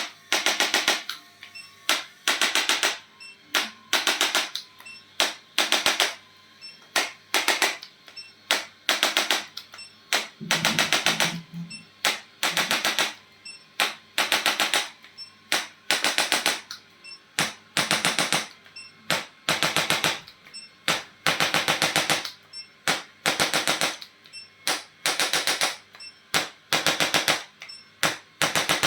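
Handheld electric percussive instrument firing short bursts of rapid, even taps, each burst under a second, about one or two bursts a second with brief gaps between them.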